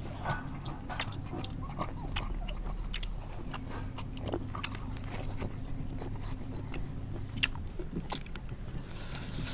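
Close-up mouth sounds of biting and chewing a mouthful of seafood salad with chewy octopus tentacle: many short, wet clicks and smacks. A steady low hum runs underneath.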